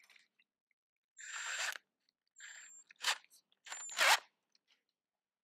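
Cordless drill's chuck being tightened on an extension bar, with four or five short grinding bursts, a faint high whine in some, the loudest about four seconds in.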